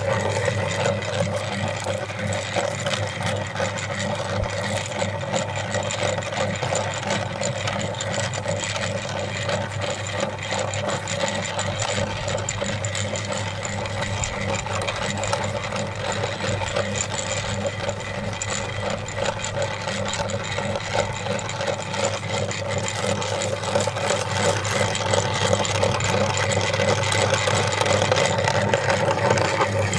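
Motor-driven meat grinder running steadily: a constant mechanical hum with small irregular ticks over it.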